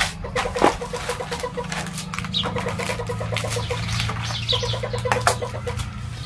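Irregular clicks and rustles of spinach being cut with a knife and plastic packets being handled, with a bird chirping briefly twice in the background over a steady low hum.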